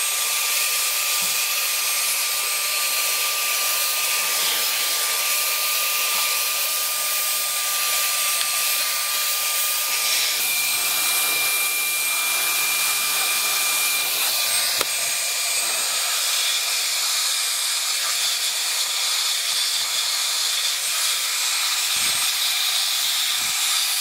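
Baseus A3 cordless car vacuum running in blower mode: a steady high motor whine over a loud rush of air. The whine changes tone about ten seconds in.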